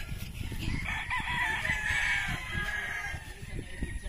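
A game rooster crowing once, a long call that starts about a second in, over a low rumble of wind and handling on the microphone.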